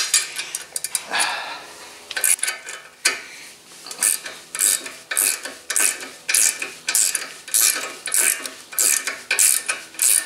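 Hand ratchet with a socket turning out a caliper mounting bracket bolt: the pawl clicks in short quick runs, about two strokes a second, with a little rubbing of metal before the clicking settles into its rhythm.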